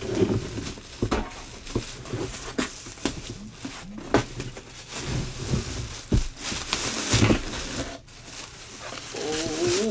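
Thin plastic bag crinkling and rustling as it is pulled off a cardboard box, with irregular bumps and scrapes of the box and bag on a wooden table.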